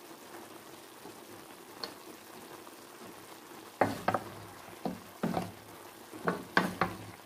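Chicken liver, gizzards and broccoli sizzling softly in a frying pan, then, from about four seconds in, a wooden spatula stirring them, knocking and scraping against the pan some eight times.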